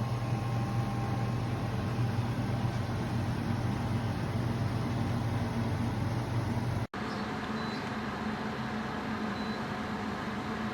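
Portable air conditioner running steadily, a low compressor hum under fan noise. The sound cuts out abruptly for an instant about seven seconds in, then carries on with a slightly different tone.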